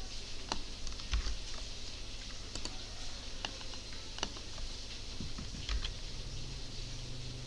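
Scattered single clicks of a computer keyboard and mouse, several seconds apart, over a steady low background hum.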